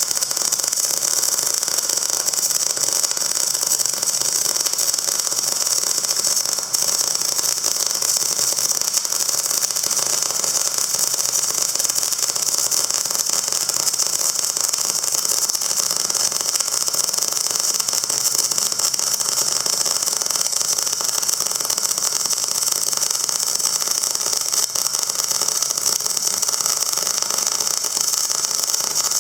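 A machine running steadily with a strong high hiss, unchanging throughout.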